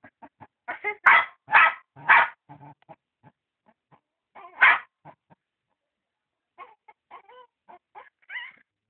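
Dog barking in short bursts: three quick loud barks about a second in and another near the middle, then fainter yips and a whine near the end.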